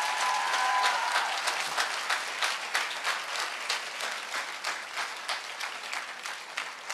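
Audience applauding, many hands clapping together, loudest about a second in and gradually tapering off.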